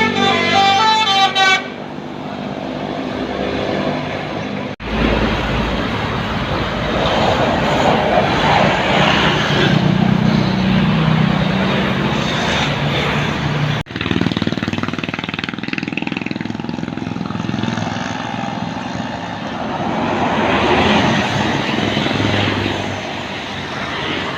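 A bus's multi-tone telolet horn plays a quick stepped melody for the first second and a half. Then comes the steady rumble of buses and traffic passing, which drops out abruptly twice.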